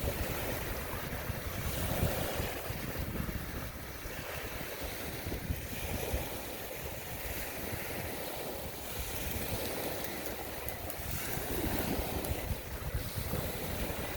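Waves washing in a bay, a steady rush of water with wind buffeting the microphone in a gusty low rumble.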